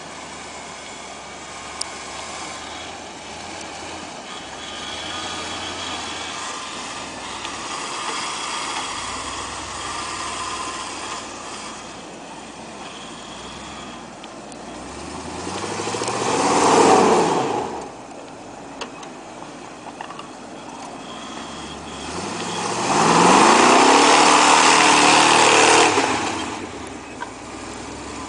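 A 1977 Ford F-150 4x4 pickup's engine pushing through deep snow: it runs at low throttle at first, then revs up with rising pitch about halfway through and cuts off, and near the end revs hard again and holds loud for a few seconds before dropping back.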